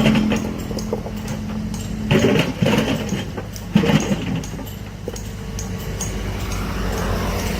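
Heavy machinery's diesel engine running steadily, with bursts of clanking and rattling about two seconds in and again near four seconds.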